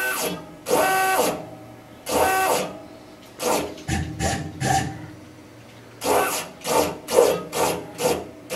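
Tormach PCNC 1100 X-axis stepper motor, its coupler loosened from the ball screw, jogged in about a dozen short moves. Each move is a brief whine that rises in pitch as it starts and falls as it stops; the first few are longer, and the later ones come quicker and shorter. The motor is run by the X-axis stepper driver that has failed.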